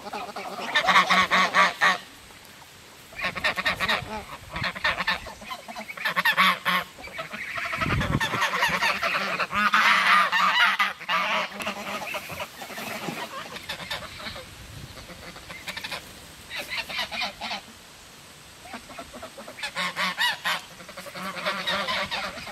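Domestic geese honking in repeated bursts of rapid calls, with short pauses between the bursts. There is a brief low thud about eight seconds in.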